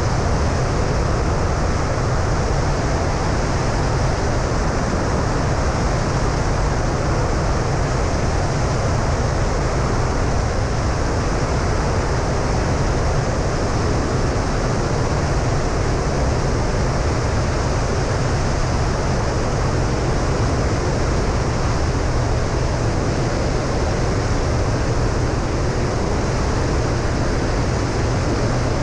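Steady roar of wind buffeting a camera mounted outside a single-engine light aircraft in cruise, with the low drone of its propeller engine underneath.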